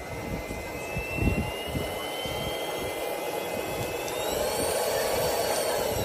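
Airbot Supersonics Aura cordless stick vacuum running: a steady rush of air with a high motor whine that climbs a little in pitch about four seconds in. A knock from handling the vacuum about a second in.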